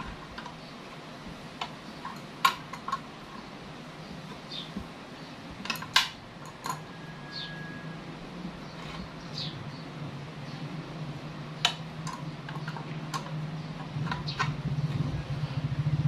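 Scattered light clicks and clinks of hand work, over a low hum that grows louder near the end.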